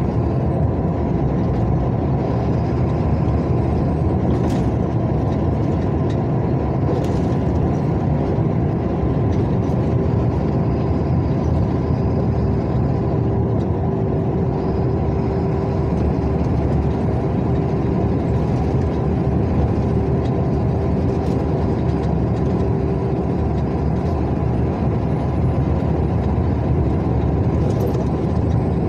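Steady driving noise of a vehicle cruising along a highway: engine running and tyres rolling on asphalt, with a faint steady hum throughout.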